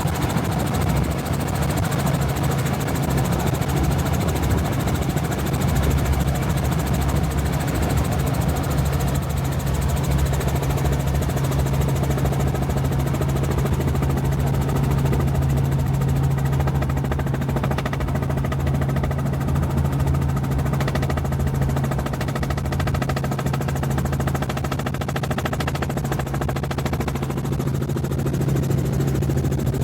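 An engine running steadily at constant speed, a continuous low hum with no revving or change in pitch.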